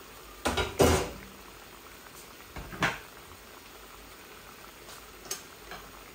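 Mustard-and-poppy-seed curry gravy bubbling at a steady simmer in a pan on a gas hob, with a few clattering knocks of kitchenware, the loudest about a second in and another near three seconds.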